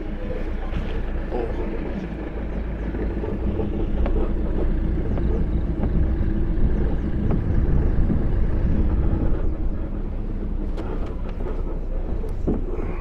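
Engine and road rumble of a slow-moving vehicle, heard from on board. It swells louder in the middle, with a few light knocks near the end.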